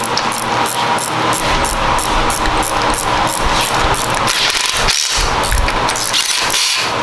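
Cordless impact driver hammering in repeated runs as it drives down intake manifold bolts on a big-block Chevy engine, with a short pause about five seconds in.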